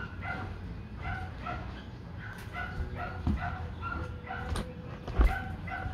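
A dog whimpering in short, high whines, two or three a second. A few knocks come through, the loudest about five seconds in.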